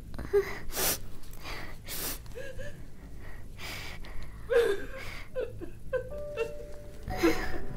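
Wordless vocal sounds: a series of short, breathy gasps and huffs with brief whimper-like voiced blips in between. A soft held tone comes in near the end.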